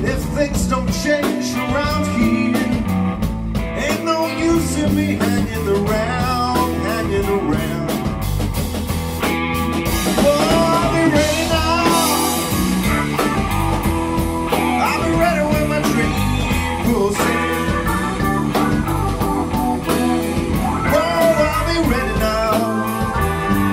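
Blues-rock band playing an instrumental passage: electric guitar, bass and drums over a steady beat. A bending lead line rises above the band from about ten seconds in.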